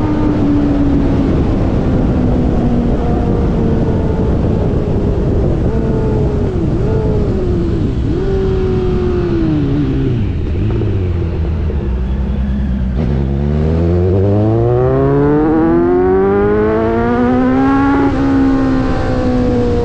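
An engine running, its pitch sinking slowly to a low rumble over about ten seconds, then climbing again as it speeds back up, and easing off slightly near the end.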